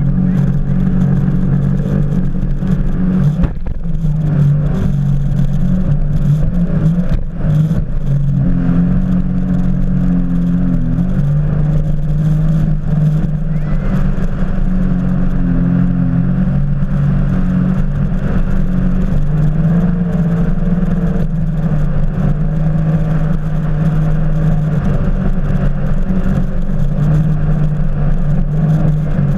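Jet ski engine running at speed, heard from the handlebars, with the hiss of spray off the hull. The engine note dips and rises a few times as the throttle changes, with brief breaks in the sound about three and a half and seven seconds in.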